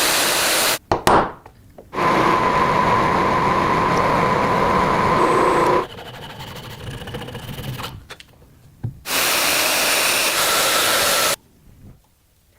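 A power tool runs loudly in several short clips, each cut off abruptly. One stretch carries a steady whine, and between the clips there are quieter gaps. This is the sound of a power tool working on the grinder's parts during rust removal.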